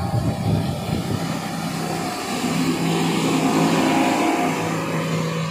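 Motorboat engines running at speed as small fast boats race on the plane, a steady engine drone over the rush of wind and water.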